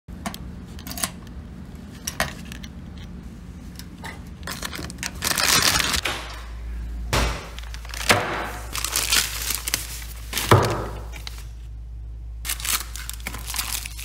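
A few sharp clicks of a key working a metal mailbox lock, then a plastic mailer bag being torn open and crumpled, crinkling in repeated bursts from about five seconds in.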